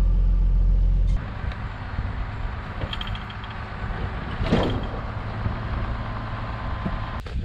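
Pickup truck engine idling, heard from inside the cab as a steady low rumble that stops abruptly about a second in. A farm tractor's engine then runs steadily at idle outdoors, with one brief louder sound about four and a half seconds in.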